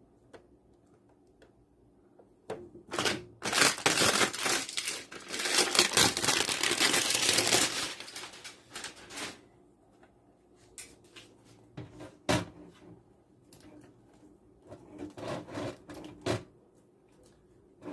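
Hands handling a replacement PC power supply: a dense crackling and rustling for about seven seconds, then scattered clicks and knocks.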